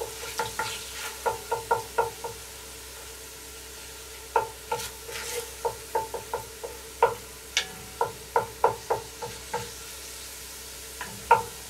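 Wooden spatula scraping and knocking against the inside of a cast-iron Dutch oven while stirring tomato paste into hot oil, each stroke leaving a short ringing note from the pot, over a faint sizzle. The stirring pauses for about two seconds after the first two seconds and again near the end.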